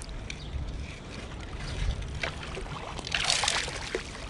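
Shallow water sloshing, with a short splash of water about three seconds in.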